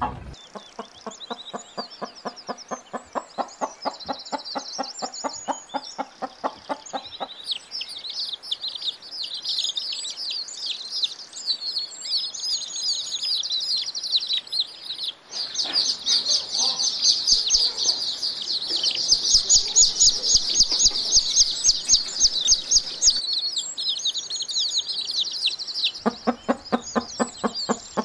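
A flock of chickens clucking in fast runs of calls at the start and again near the end, over steady high-pitched chirping that grows louder in the middle.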